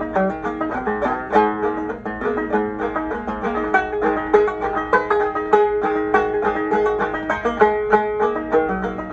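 Solo banjo playing a fast, steady run of plucked notes, with one note that keeps coming back through the tune.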